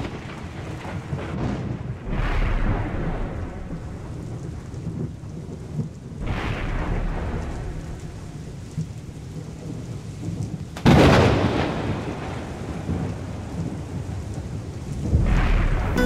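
Thunderstorm: steady rain with thunder rolling four times, each rumble fading out over a few seconds. The loudest, about eleven seconds in, begins with a sudden crack.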